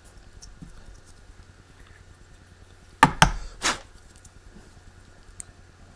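Two or three short, sharp knocks close together about three seconds in, like a hard object being handled or set down on a bench, over a faint steady hum.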